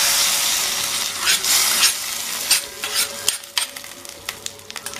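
Hot coconut-oil tempering of mustard seeds, shallots and curry leaves sizzling as it hits the curry. The sizzle dies away over the first two seconds, then a few light clicks follow.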